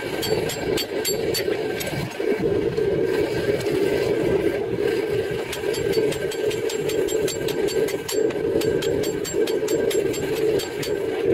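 A steady machine drone with faint, quick ticking over it.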